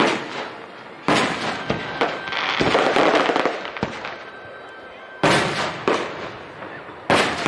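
Aerial fireworks shells bursting: sharp bangs at the start and about a second in, a dense crackling stretch in the middle, then three more bangs in the last few seconds.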